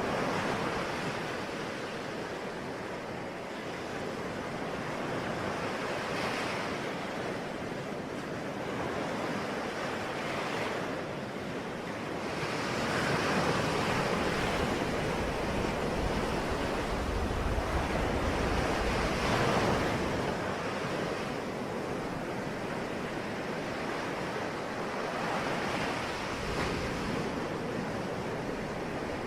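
Ocean waves breaking and washing on a shore, a steady wash of surf that swells and ebbs every few seconds, with wind on the microphone.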